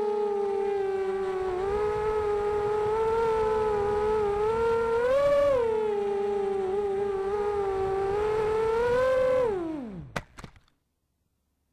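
Xbird 250 quadcopter's brushless motors and 5x3 propellers whining steadily, the pitch wavering with throttle and swelling briefly about five seconds in. Near the end the whine slides sharply down as the motors spool down, and the sound cuts off abruptly.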